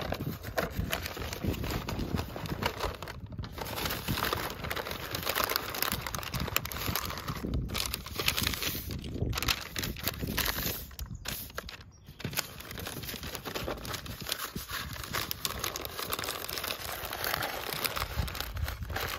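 Pink butcher paper crinkling and rustling as it is folded and rolled tightly around a smoked chuck roast, with brief pauses between folds.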